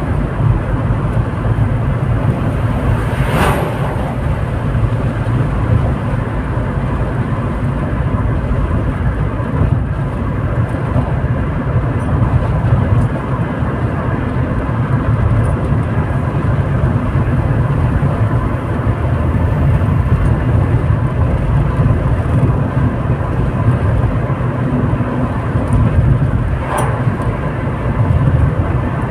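Steady low rumble of a car's engine and tyres at highway speed, heard inside the moving cabin. A brief sharp knock comes about three seconds in and another near the end.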